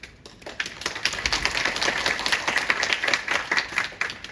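Audience applauding: a burst of many hands clapping that builds about half a second in and dies away near the end.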